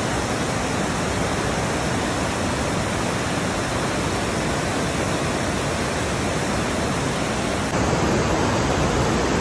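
Steady rushing of a waterfall, with a slight rise in loudness about three-quarters of the way through.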